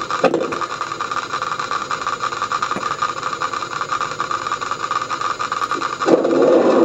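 A van engine idling steadily with a fine, even pulse. There is a sharp knock about a quarter second in, and a louder rough noise near the end.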